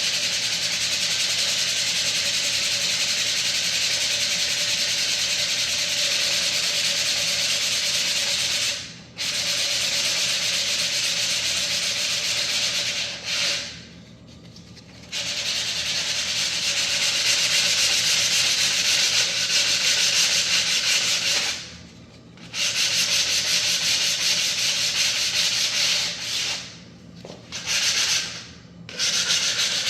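Sanding the freshly cut edge of a laminate floor plank: a steady sanding hiss in long even passes, stopping briefly about 9, 14 and 22 seconds in and twice near the end.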